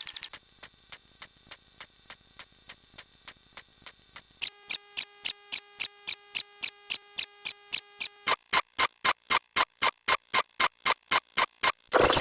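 A rapid, even series of sharp electronic ticks, one per number in an animated count. The ticks are about three a second at first. About four seconds in they turn faster and louder, with a steady held tone chord under them for about four seconds. After that the ticks go on alone.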